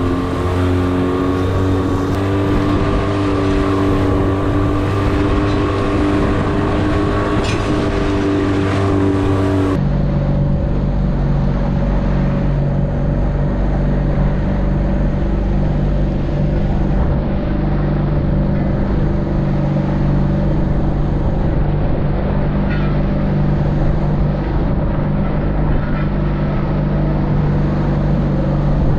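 Small outboard motor on an inflatable boat running steadily under way at a constant pitch. Its pitch and tone change abruptly about ten seconds in.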